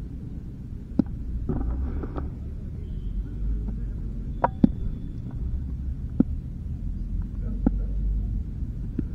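Wind buffeting an action camera's microphone, giving a low, uneven rumble, with a handful of single sharp taps and knocks scattered through it.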